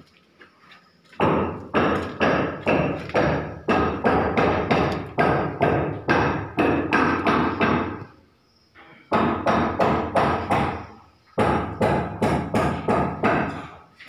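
Hammering: repeated hammer blows at about two to three a second, in three runs broken by two short pauses.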